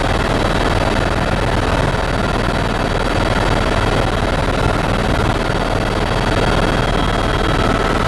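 Loud, steady cabin noise of a tour helicopter in level flight: rotor and engine noise heard from inside the cabin, even throughout.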